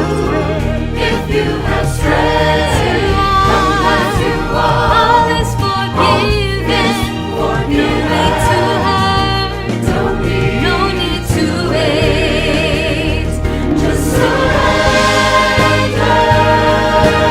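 Worship music: several voices singing a Christian hymn or song with vibrato over a steady instrumental accompaniment.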